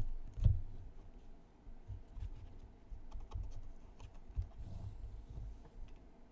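Trading cards and their packaging being handled on a table: irregular light clicks and taps, with a louder low thump about half a second in and a brief soft rustle near the end.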